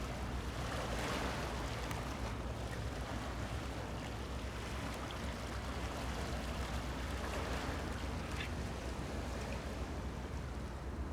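Helicopter heard from a distance as a steady low hum, under a rushing noise of wind and surf that swells and fades twice.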